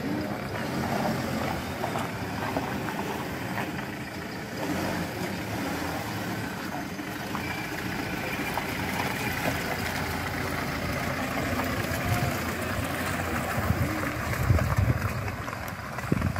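Toyota Hilux pickup's engine running as the truck drives slowly past at low speed and pulls off the dirt road. Low gusts of wind buffet the microphone near the end.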